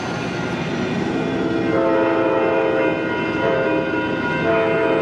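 Horn of an Amtrak California EMD F59PHI locomotive sounding a chord of several notes in long blasts, starting about a second in, as the train approaches a grade crossing. The low rumble of the moving train runs underneath.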